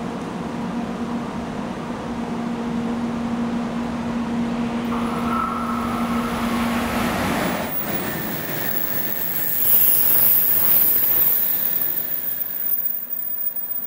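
JR West 500 series Shinkansen running through the station at speed: a rush of wheels and air that builds as it approaches and is loudest about ten seconds in as the cars sweep past, with a strong high hiss. A steady hum lies under the approach and stops about eight seconds in.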